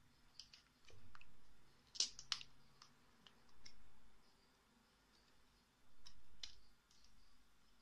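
Light plastic clicks and taps from the clear acrylic plates of a 100-hole manual capsule filler and the capsules in them as they are handled. The clicks are irregular, the sharpest pair coming about two seconds in.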